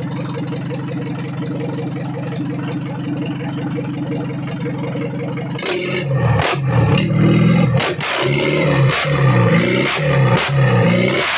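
Isuzu 4JA1 2.5-litre four-cylinder diesel engine running on a test stand, idling steadily for the first half. From about six seconds in it is revved in repeated blips, louder, with the pitch rising and falling and sharp diesel clatter.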